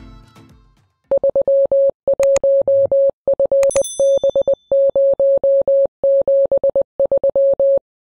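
Music fades out within the first second, then a single steady-pitched beep keyed on and off in short and long pulses: Morse code (CW). A short swish, then a click with a brief ringing chime, come a little before the middle.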